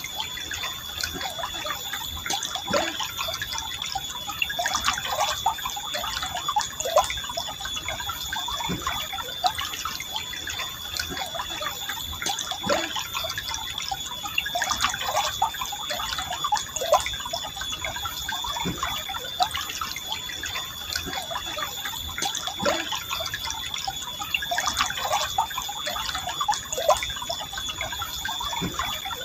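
Forest river flowing calmly, water trickling and gurgling with many small drips and plops, over a steady high-pitched tone.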